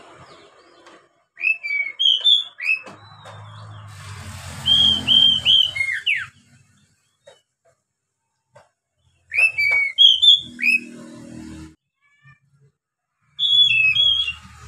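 Oriental magpie-robin singing: four bursts of clear, loud whistled phrases that slide up and down, with short silent pauses between them.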